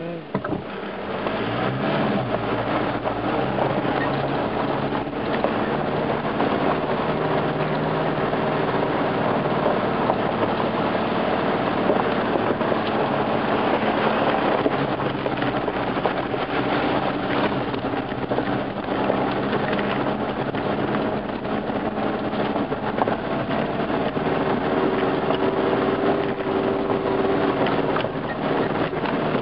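Off-road 4x4 driving along a gravel forest track: engine running steadily under way, with tyre and body noise, picking up about a second in.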